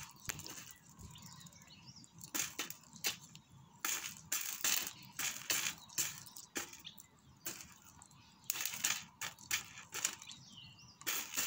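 Vervet monkey eating dried maize kernels: irregular crisp crunches and clicks as it picks kernels off a corrugated metal roof and chews them.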